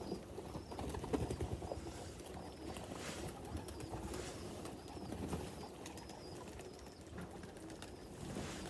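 Pigeons cooing, with faint high chirps repeating about once a second.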